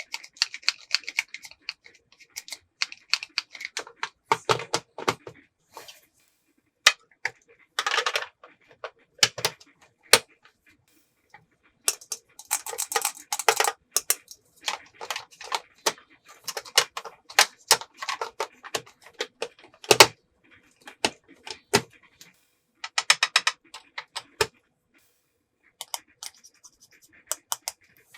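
Small hard plastic toy pieces being handled, clicking and clacking against each other in irregular runs, with short bursts of scraping and rustling.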